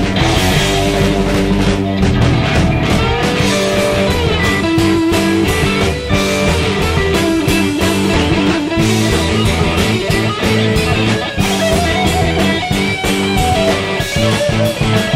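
Rock band playing live with distorted electric guitars, bass and drums, a lead guitar line with bent notes riding over a driving rhythm.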